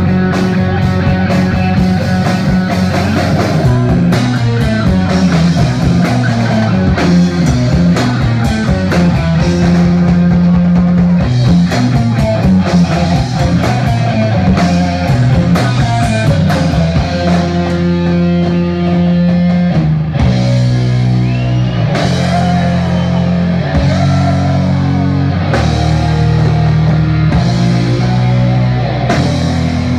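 Doom metal band playing live: electric guitar and bass guitar holding long, low notes that change every second or two, over a drum kit. Loud throughout, with no singing.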